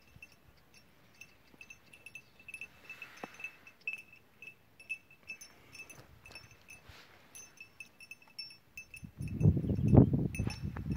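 Small metal bells tinkling faintly and irregularly, short ringing notes scattered through the whole stretch. From about nine seconds in, a louder burst of low rumbling noise takes over.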